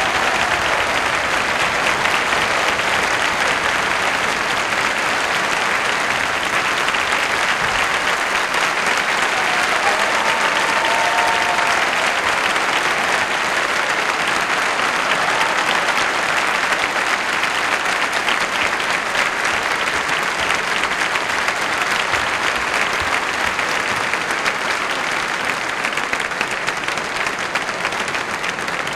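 Large audience applauding steadily, a dense clapping that eases slightly near the end.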